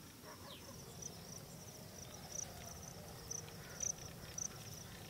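Insects chirping outdoors: short, faint, high-pitched trills repeated about every half second over a low background hum.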